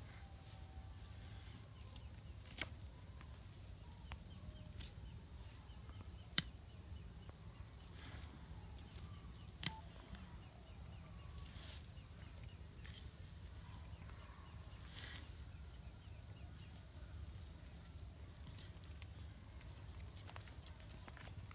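Steady high-pitched insect chorus, with a low steady rumble beneath and a few sharp clicks, the sharpest about six seconds in.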